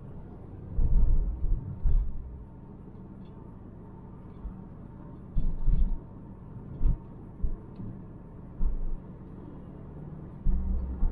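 Interior driving noise of a Volvo V90 T5 Cross Country with its 2.0 L turbocharged four-cylinder: a steady low rumble of engine and tyres, broken by several short low thumps.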